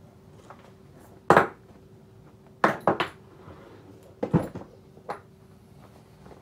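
Canvas survival-kit pouch being handled and set down on a wooden table: a handful of sharp knocks and clinks from the pouch and its metal strap buckles, the loudest about a second in, then a quick cluster near three seconds and more past four.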